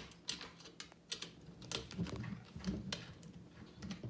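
Light, irregular clicks and taps from a screwdriver and the cart's frame pieces being handled as the screws holding the plastic holders are checked for tightness.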